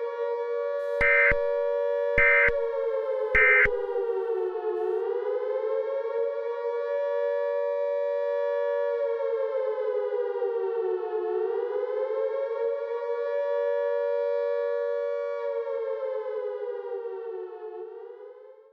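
Three short electronic data bursts of an Emergency Alert System end-of-message code, about a second apart, over a continuous siren tone. The siren slowly rises and falls in pitch and fades out near the end.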